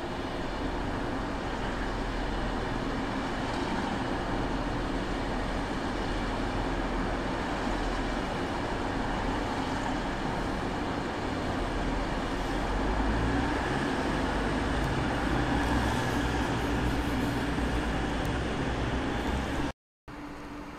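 Steady hum and rush of standing electric multiple units, their ventilation and equipment fans running, growing a little louder in the second half. It cuts off suddenly near the end.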